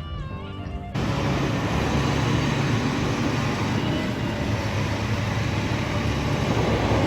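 Music for about a second, then an abrupt cut to a steady engine running, with a low hum under a loud even rushing noise.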